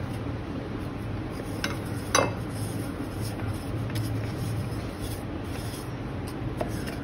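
Stainless-steel mixer-grinder jar knocking against a glass bowl as crushed Oreo crumbs are emptied out: two knocks about two seconds in, the second louder, and a light click near the end, over a steady low hum.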